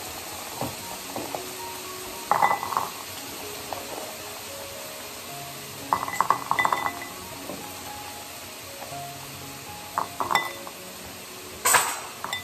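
Chestnuts tipped out of a cloth pouch clattering into a ceramic bowl in four short bursts, about two, six and ten seconds in and again near the end, the last the loudest. Soft background music runs underneath.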